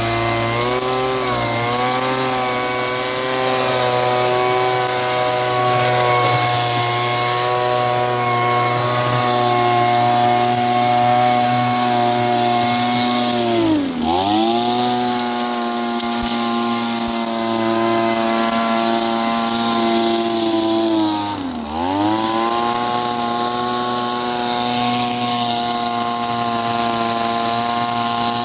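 Small-engine handheld leaf blower/vacuum running at high speed with a steady, buzzing engine note. Twice, about halfway through and again some seven seconds later, the engine speed drops sharply for a moment and then climbs back up.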